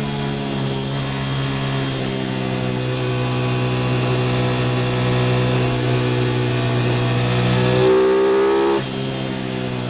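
Aprilia RS660's parallel-twin engine running under load, its pitch slowly climbing as it pulls. The engine gets louder about eight seconds in, then drops off suddenly about a second later as the throttle is shut or the next gear is taken.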